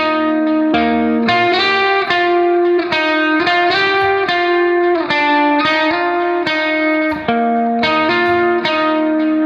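Background music: a guitar playing a melody of plucked notes, one every half second or so.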